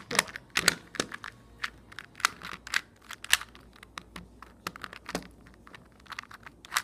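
Plastic Rubik's cube being turned by hand, its layers snapping round in a quick, irregular run of clicks and clacks. It turns freely.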